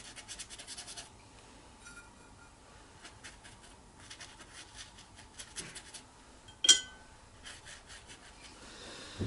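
Watercolour brush scratching on paper in groups of quick, short dabbing strokes. About two-thirds of the way through there is one sharp, ringing clink, like a brush or small pot knocking against glass or ceramic.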